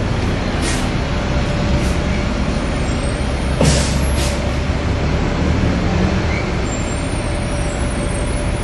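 Street traffic noise: a heavy vehicle's engine rumbling steadily, with several short hisses, the longest about three and a half to four seconds in.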